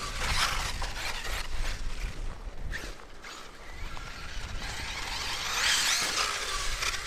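Arrma Kraton EXB 1/8-scale RC monster truck running on 6S power over a dirt track: brushless motor whine and tyres churning dirt, dropping away about halfway through and building again near the end.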